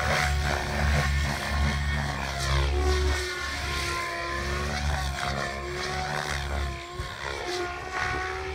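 Radio-controlled model helicopter in aerobatic flight: a steady motor-and-rotor whine whose pitch sweeps down and back up as it manoeuvres, most clearly about three to four seconds in.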